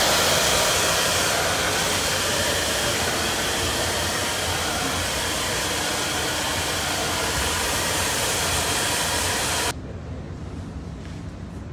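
Two hand-held hair dryers blowing on wet hair, a steady loud rush of air. It cuts off suddenly near the end, leaving a quieter background.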